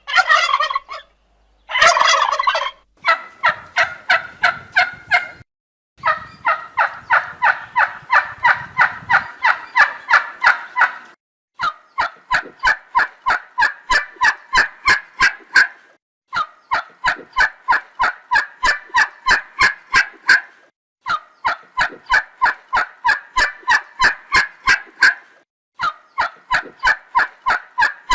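Turkey gobbling: rapid rattling pulses, about four a second, in runs of several seconds broken by short pauses.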